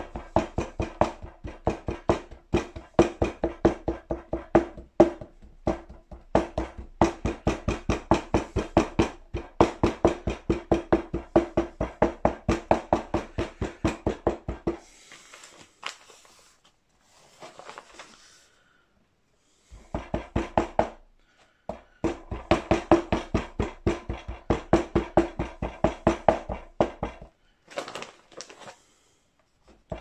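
Wooden rammer pounding oil-bonded moulding sand into a small moulding flask on a workbench, a quick run of knocks with a ringing tone, several a second. About halfway through the knocking stops for a few seconds of soft sand rustling, then starts again, with a shorter break near the end.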